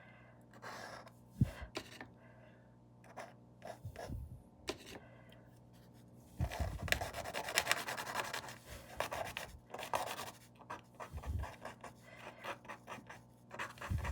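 Paintbrush scratching and rubbing across the painting surface in short, irregular strokes, busiest from about six to ten seconds in, with a single light tap early on.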